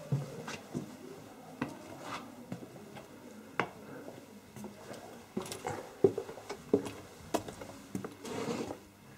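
Irregular knocks and clicks, like steps on a hard floor, in an echoing room, coming closer together in the second half, with a brief scuffing shuffle near the end.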